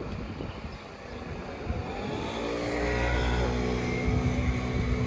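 A motor vehicle's engine running; about two seconds in it rises in pitch, then holds a steady note.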